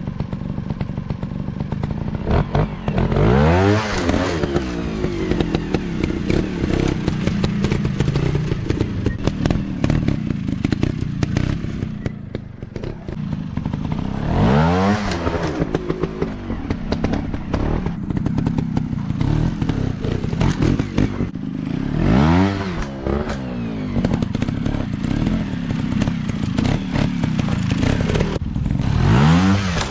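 Dirt bike engines running on a trail, revved up and back down four times, with the pitch rising and falling each time.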